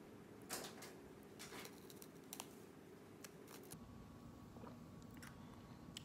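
Faint crunches of a crisp cracker being bitten and chewed, a handful of short crisp snaps spread over a few seconds.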